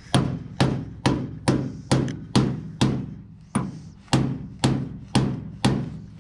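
Hammer blows on metal, a dozen steady strikes about two a second, each ringing briefly. They are knocking a stuck deck lid loose on a 1936 Ford coupe.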